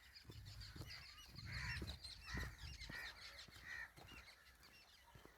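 Birds calling: about five loud, harsh calls bunched in the middle, over continuous high twittering of small birds. A low rumble runs under the first half.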